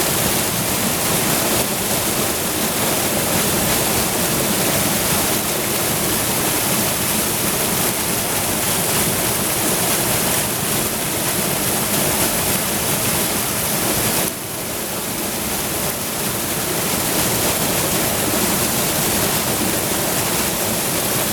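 Steady rushing of water pouring over a river waterfall. About 14 seconds in it turns suddenly a little quieter, then builds back up over the next couple of seconds.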